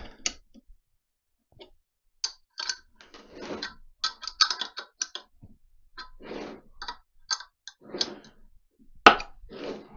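Steel open-ended spanner clicking and scraping on nuts as they are tightened down on studs to press a seized, rusty ball bearing out of its housing plate, in short irregular bursts. Near the end comes one sharp, loud crack as the stuck bearing suddenly gives and shifts in the housing.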